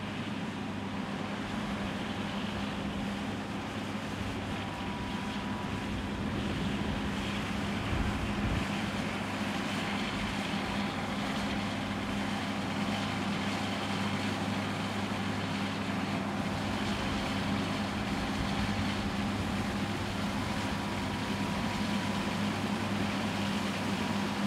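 John Deere S790i combine harvester running steadily while threshing wheat, a continuous deep engine hum with a faint whine above it, slowly growing a little louder.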